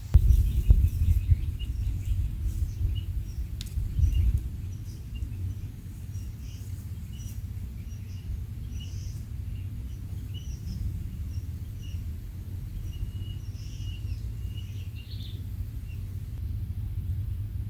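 Small birds chirping in short, scattered calls over a steady low rumble of wind or handling noise on the microphone.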